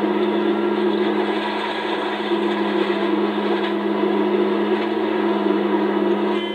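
Komatsu PC650-5 hydraulic excavator's diesel engine running steadily under load as the machine swings and dumps its bucket, a constant low hum. The sound is dull and muffled, as recorded on an old VHS camcorder.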